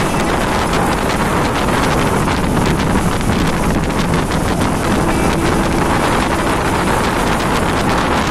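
Steady wind noise buffeting the microphone, mixed with the running and road noise of a moving bus.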